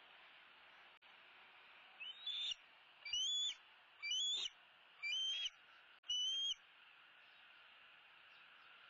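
Juvenile bald eagle calling five times in a row, about one high whistled call a second starting about two seconds in, each call rising and then levelling off, over a faint steady hiss.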